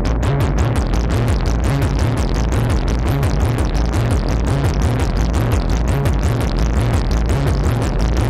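Gritty, overdriven modular synthesizer sequence playing through a Doepfer A-138m matrix mixer: fast, evenly repeating sharp notes over a pulsing bass line. It sounds really grungy.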